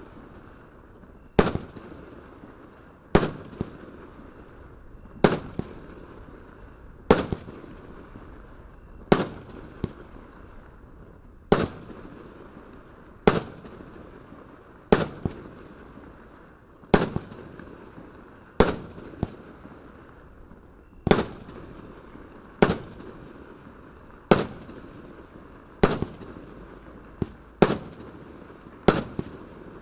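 A 296-shot compound firework cake firing aerial shells one after another, with a sharp bang as each shell bursts, about every one and a half to two seconds. A steady hiss runs between the bangs.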